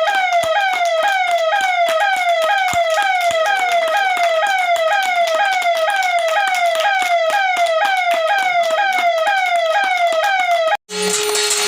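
Police station siren sounding a fast repeating wail, each cycle sliding down in pitch, about two cycles a second. It cuts off abruptly near the end.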